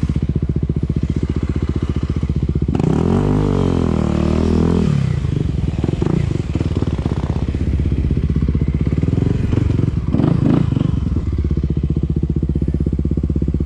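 Single-cylinder dirt bike engine running at low trail speed, blipped up and down for a couple of seconds about three seconds in, with knocks and clatter from the bike over rough ground around ten seconds in.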